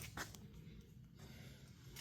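Near silence: faint room tone with a single soft click about a fifth of a second in.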